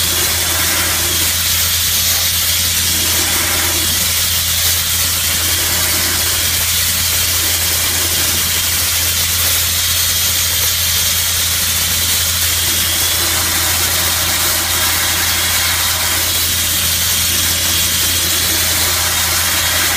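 Dustless (wet abrasive) blasting nozzle hissing loudly and steadily as the water-and-abrasive spray strips paint off steel body panel, with a steady low engine drone underneath.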